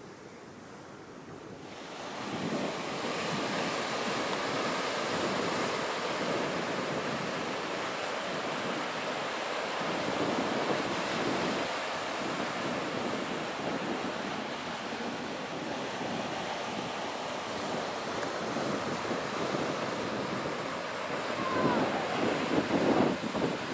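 Ocean surf washing in, with wind buffeting the microphone: a steady rushing noise that gets louder about two seconds in.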